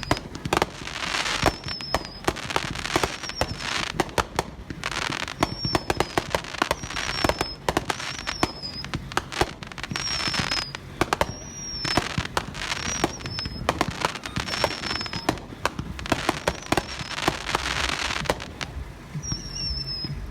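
Consumer aerial firework cakes of a finale set fired together: a continuous, dense barrage of launches and shell bursts with crackle, the reports coming several times a second without a break.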